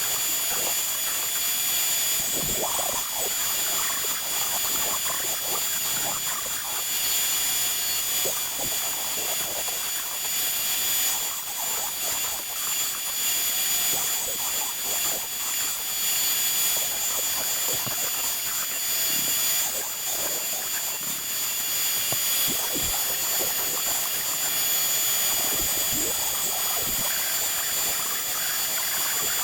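Onefinity CNC router's spindle motor running at high speed with a steady high whine while the machine cuts wood.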